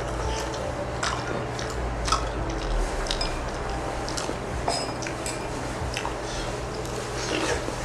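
Close-up eating sounds: utensils clicking against dishes several times, with wet chewing. A steady low hum lies underneath.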